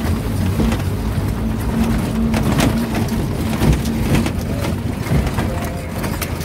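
A vehicle's engine running steadily while driving, heard from inside the cab, with frequent short knocks and rattles through it.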